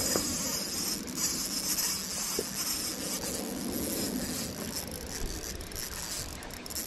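Small spinning reel being cranked to play a hooked trout on ultralight tackle: a soft, steady gear whir over a steady high hiss.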